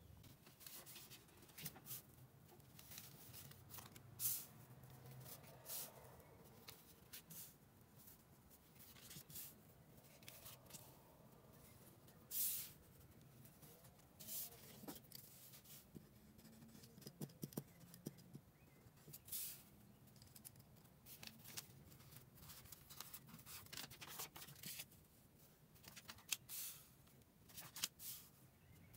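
Paper squares being handled and laid down one at a time on a flat surface: faint, short rustles and scrapes at irregular intervals.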